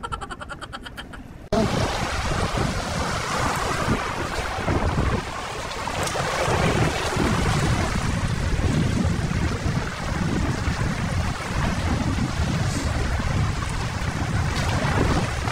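Wind buffeting the microphone, with small sea waves washing over shoreline rocks. A brief, fast rattle opens the sound, then the wind noise cuts in suddenly about a second and a half in.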